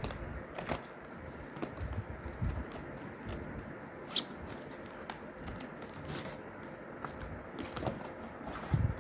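Box and packaging being handled: scattered rustling, scraping and small plastic clicks, with a few soft thumps.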